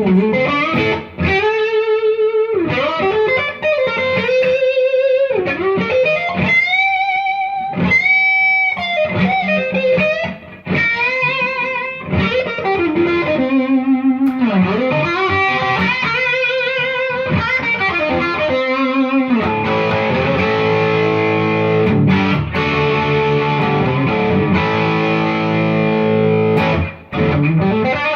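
2016 Gibson Les Paul R8 electric guitar played through a Friedman Dirty Shirley Mini amp with a Joyo Vintage Overdrive pedal into a 1x12 cab with a Celestion Creamback 65 speaker, giving a crunchy overdriven tone. It plays single-note lead lines with string bends, then ringing full chords from about two-thirds of the way in. The guitar is not freshly tuned.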